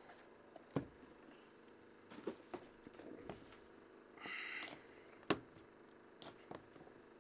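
Faint handling noise of a trading card box being worked open by hand: a few light knocks and taps, some rustling, and a brief scrape about four seconds in.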